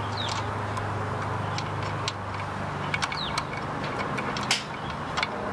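Light clicks of a nylock nut being threaded by hand onto a horn-bracket screw, over a steady low hum. A few short high chirps that fall in pitch sound now and then.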